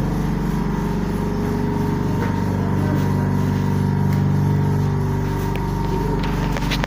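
Steady machine hum, a constant low drone made of several fixed tones, with a few faint clicks near the end.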